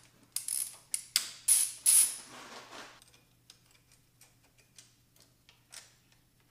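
Ratchet and metal hand tools clicking and clinking against engine parts: a quick run of loud, sharp metallic clicks with a brief ring in the first two seconds or so, then scattered light ticks.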